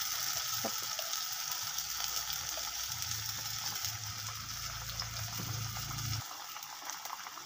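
Watery blended chili, shallot and garlic spice paste sizzling and bubbling in hot oil in a wok. The paste is still frying off the excess water from blending.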